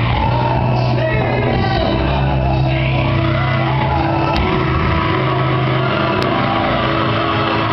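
A Baptist preacher whooping, his sermon's close chanted in sung, rising and falling phrases into the microphone. Church music with held bass notes plays underneath, and there are shouts.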